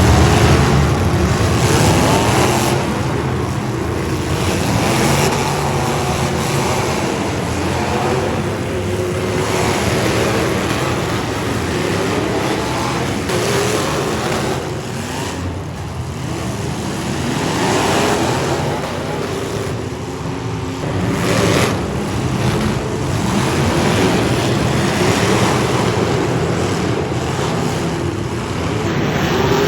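Demolition derby cars' engines running and revving, loud and continuous, with pitch rising and falling.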